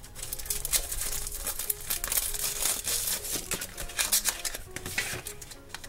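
Cardboard and plastic toy packaging crinkling and crackling in quick, irregular bursts as a Shopkins Season 7 gift-box pack is pried open by hand.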